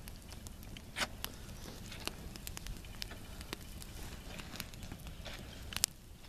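Small campfire crackling, with scattered sharp pops, the loudest about a second in and near the end.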